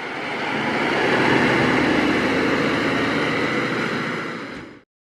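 Fire engine driving off, its engine and road noise swelling to a peak and then fading; the sound cuts off abruptly near the end.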